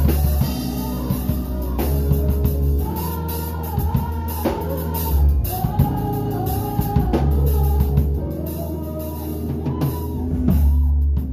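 Acoustic drum kit played along to a recorded song, with snare and cymbal hits over the track's bass and singing.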